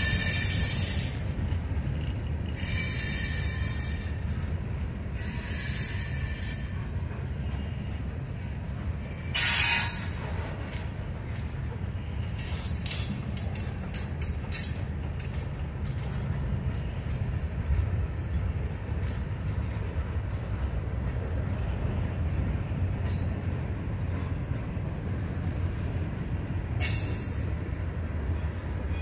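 Freight cars of a long mixed train rolling past with a steady low rumble of wheels on rail. High-pitched wheel squeals come and go, with a short loud burst about ten seconds in.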